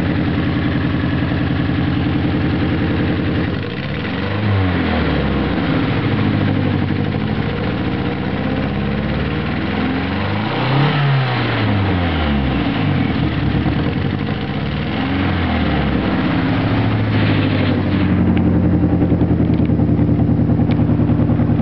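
Nissan SR20DET turbocharged four-cylinder engine idling, then revved up and let back down over about twelve seconds before settling to idle again. It runs with an unevenness that the owner suspects may be a misfire.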